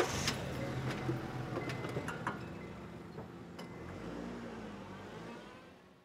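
Car engine just started and idling with a steady low hum, a few light clicks over it, fading away near the end.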